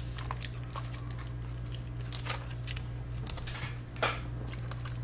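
Scattered light clicks and rustles over a steady low hum.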